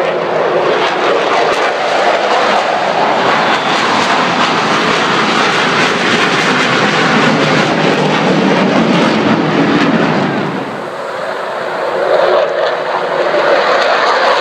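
Military jets taking off one after another, with loud jet engine noise. The roar of the first jet climbing overhead eases briefly about eleven seconds in, then swells again as the next jet lifts off.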